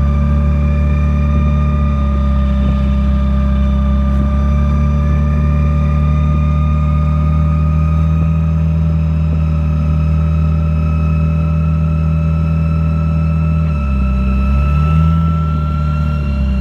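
Car engine running steadily under a high whine that slowly rises in pitch; about fourteen seconds in the engine's low note briefly dips and shifts.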